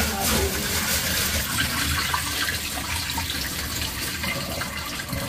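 Water splashing in a stainless-steel kitchen sink as rice is washed by hand in a pot and the cloudy rinse water is poured off.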